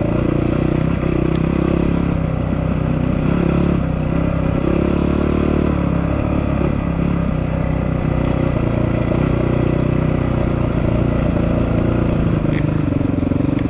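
Dirt bike engine running as the bike rides a dirt trail, its pitch rising and falling with the throttle, heard from on the bike itself.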